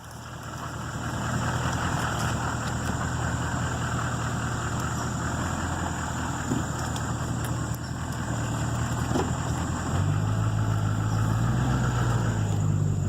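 Pickup truck engine running at low speed while driving over rough ground, a steady low hum with a rattling, rustling wash above it. About ten seconds in the engine note rises and gets louder.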